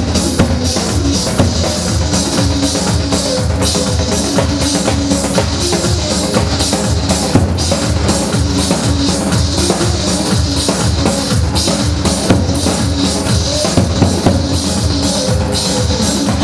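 Live Kurdish wedding dance music from the band's keyboard: a fast, steady drum beat under a held melody, with no singing.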